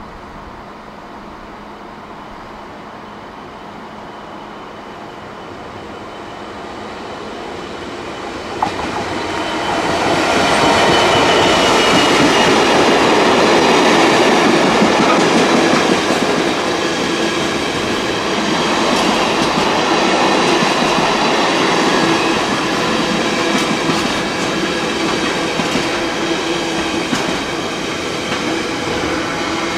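Diesel-hauled container freight train growing louder as it approaches, with a sharp click just before it arrives. Its long line of container wagons then passes close by, loud and steady to the end.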